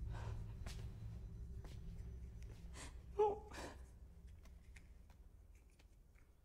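A young woman crying quietly: shaky, breathy sobs with a short whimpering cry about three seconds in, over a low rumble that fades away.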